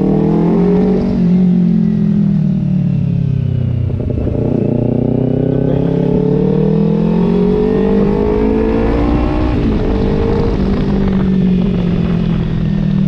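Kawasaki Ninja 250 FI's parallel-twin engine running through an Austin Racing aftermarket exhaust while riding. The engine note rises and falls briefly, then climbs steadily through the revs for several seconds. About ten seconds in it drops back and holds steady.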